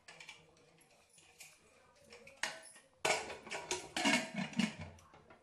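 Kitchen clatter: a run of sharp clinks and knocks of dishes and utensils starting about halfway, with a short low-pitched sound among them.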